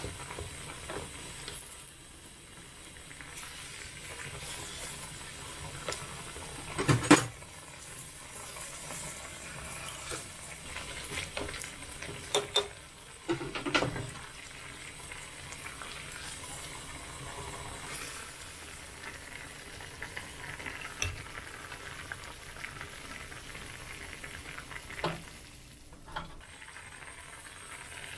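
Ramyun broth bubbling at a steady boil in a thin aluminium ramyun pot, with chopsticks stirring the noodles and bean sprouts. A few short knocks break in, loudest about a quarter of the way through and again near the middle.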